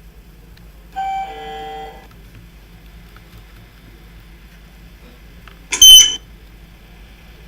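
Passenger lift signals: a two-note falling chime about a second in, then a single short, loud, high-pitched beep near six seconds.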